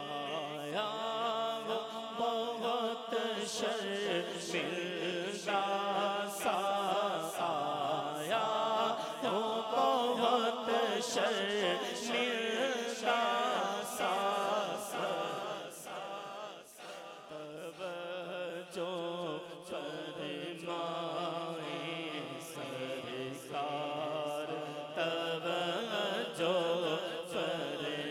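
A man singing a naat, an Urdu devotional poem in praise of the Prophet, in long, drawn-out melodic phrases.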